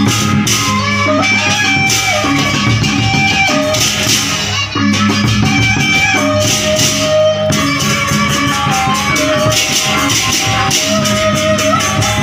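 Sasak gendang beleq ensemble playing: a bamboo suling carries a held, stepping melody over large barrel drums, with small cymbals clashing in a fast, steady rhythm.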